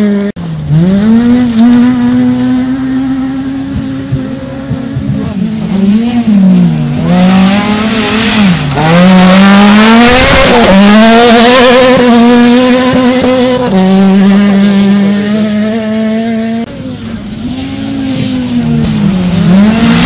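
Rally car engines working hard on a dirt stage, revs climbing and dropping again and again through the corners and gear changes. The engine is loudest as a car passes close about halfway through. The sound changes at two cuts, one just after the start and one about three-quarters of the way in, and another car is revving near the end.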